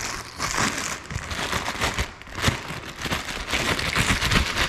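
Crinkling and rustling from hands handling the replacement hardware, with scattered light clicks and a few dull knocks.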